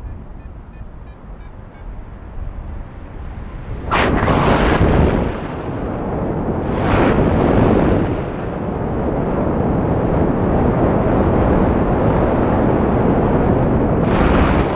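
Wind rushing over the microphone of a camera on a paraglider pilot in flight, with louder gusts of buffeting about four seconds in, around seven seconds and near the end.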